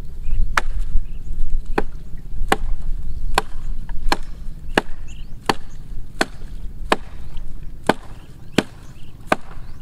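A blade chopping into a dead tree branch: about a dozen sharp strikes at an even pace, roughly one every three-quarters of a second.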